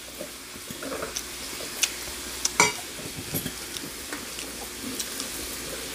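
Pork belly sizzling on a tabletop grill pan, with sharp clicks and taps of utensils against the pan and dishes, the loudest about two and a half seconds in.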